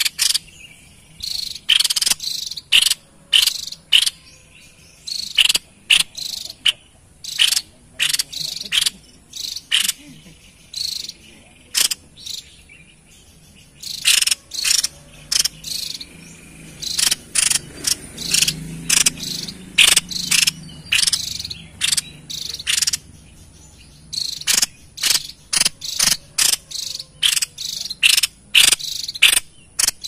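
Caged tepus dada putih babbler calling: a long series of short, sharp, harsh calls in quick runs, with brief pauses between the runs.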